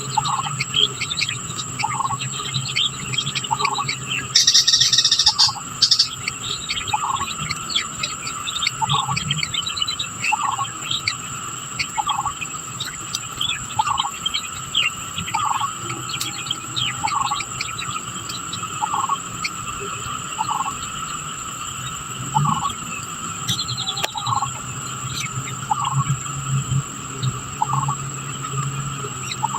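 Natural ambience of insects and birds: a steady high-pitched insect drone, scattered bird chirps, and one animal giving a short call over and over, about once every one and a half seconds. A brief louder burst of chirping comes about four to six seconds in.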